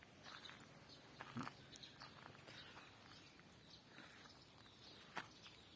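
Near silence, with faint rustling and a soft tap about a second and a half in and another near the end.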